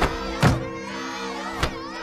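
Background music with held notes, cut by three short sharp impact thuds from taekwondo sparring.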